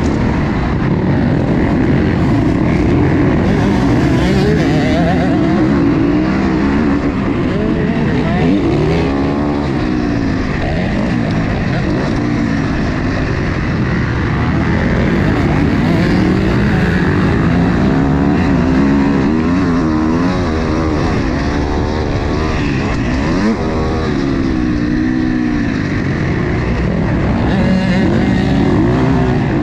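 Motocross dirt bike engine heard on board while racing, revving up and dropping back over and over as the rider opens and closes the throttle.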